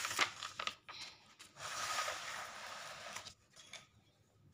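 Textbook page being turned: paper rustling and flapping at the start, a few light handling clicks, then a longer, even paper rustle from about a second and a half to three seconds in.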